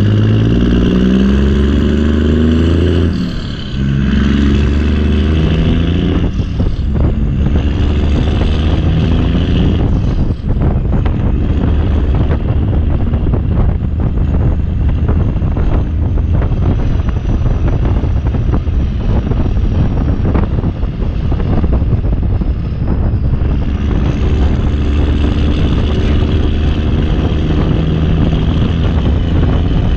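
Backhoe's diesel engine running loud under hydraulic load, its pitch stepping up and down as the controls are worked, with a brief drop about three and a half seconds in.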